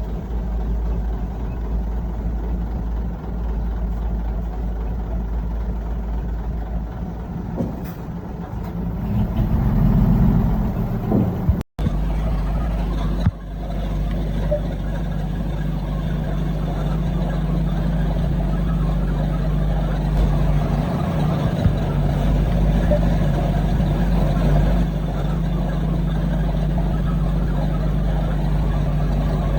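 Heavy diesel earthmoving machinery running steadily, growing louder for a couple of seconds about ten seconds in. A brief dropout near the middle, then the engines run on.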